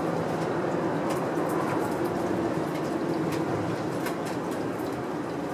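A steady mechanical hum with a low held tone, and scattered faint soft ticks over it.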